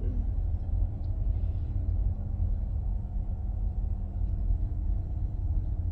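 Steady low rumble inside a minivan's cabin, with the engine running.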